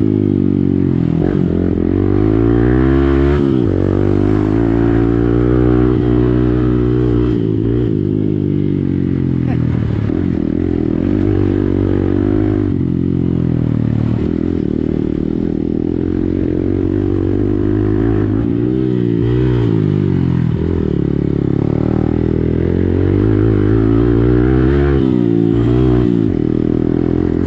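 Hero Xpulse motorcycle's single-cylinder engine through an Akrapovič exhaust, ridden with the revs climbing and dropping again and again as it pulls and eases off.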